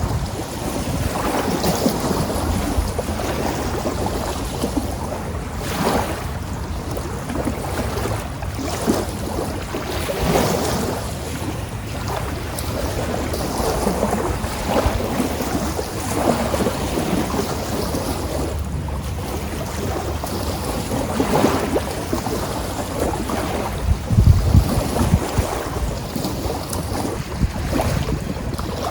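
Wind buffeting the microphone in gusts, a low rumbling rush that swells and eases, strongest about twenty-four seconds in.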